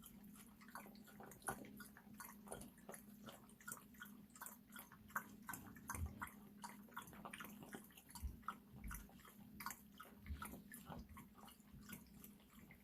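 A dog lapping water from a bowl: faint, quick wet clicks, several a second and unevenly spaced.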